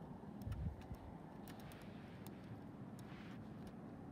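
A small plastic Lego ATV pushed by hand across a hard floor: a low rumble from its rolling wheels and the handling, with scattered light clicks.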